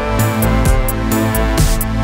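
Background music: an electronic track with a steady beat and held notes.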